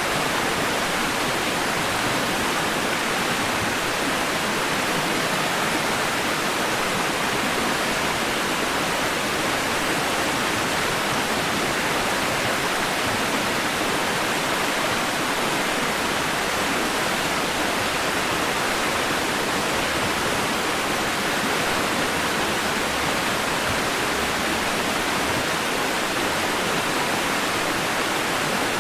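Steady synthetic white-noise-type hiss played as a baby sleep aid, even and unchanging, with most of its weight in the mids and little bass, like a rushing waterfall.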